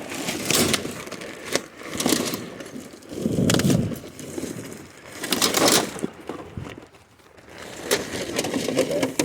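Trash bags and household junk being shifted and rummaged through: rustling and clattering in irregular spells with short quiet gaps.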